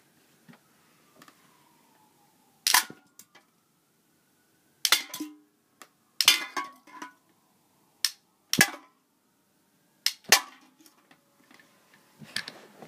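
Snapshot rubber band gun shooting repeatedly at stacked soda cans: a string of about eight sharp snaps and clattering knocks, a second or two apart and some in quick pairs, as the rubber bands hit the cans and knock them over.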